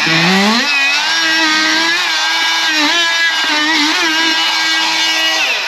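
Oscillating multi-tool spinning up, then running steadily at a high pitch as it cuts at the top of a slot in drywall, its pitch dipping briefly a few times as the blade bites.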